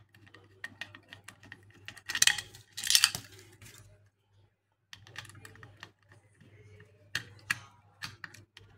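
Small metallic clicks and scrapes of a flat-head screwdriver turning in the slotted pivot of a hard disk's head actuator arm to free it. There are two louder rasping scrapes about two and three seconds in, and scattered clicks near the end.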